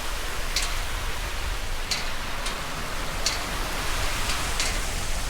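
Steady rush of flowing river water, an even hiss, with about six short high-pitched chirps at irregular intervals.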